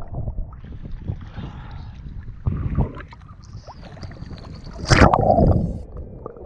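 Sea water sloshing and lapping around a camera held at the surface, with scattered small splashes. About five seconds in comes a loud splash as the camera plunges under, and then the sound drops quieter.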